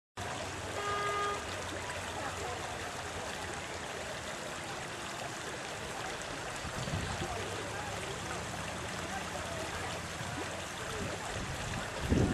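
Floodwater rushing steadily in a continuous hiss. About a second in there is a short horn-like tone, and near the end a brief low thud or rumble is the loudest moment.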